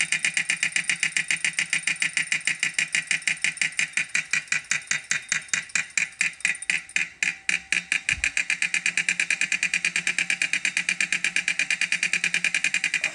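2018 Wahoo Kickr smart trainer running with a fast, even clunking, about six or seven knocks a second, that is the noise fault being shown. The knocks slow and soften around the middle, with one low thud about eight seconds in, then pick up again.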